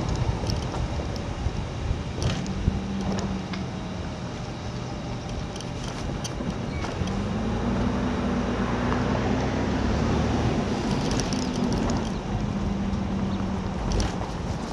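A motor engine running steadily, its hum rising and falling in pitch, with scattered light clicks and knocks.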